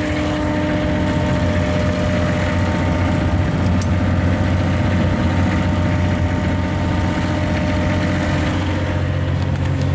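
Three-cylinder Isuzu diesel engine of a Crafco EZ-Pour 200 crack-sealing melter running steadily, heard up close.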